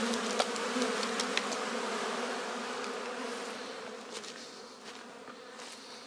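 Honey bees buzzing in a thick, steady hum at a crowded hive entrance, with a few sharp ticks in the first two seconds. The hum grows fainter toward the end.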